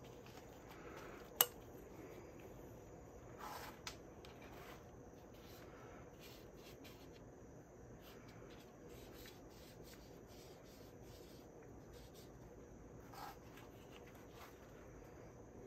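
Faint rubbing and handling noises as a new seal is worked by hand into a groove on a hydraulic steering-cylinder piston. One sharp click comes about a second and a half in, with a few lighter ticks later.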